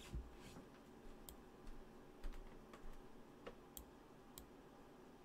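A few faint, irregular clicks and taps over quiet room tone.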